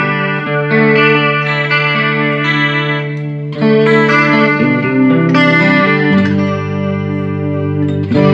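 Electric guitar played through a Fender Ultimate Chorus 2x12 combo amp: chords strummed and left to ring, a new chord struck every one to three seconds.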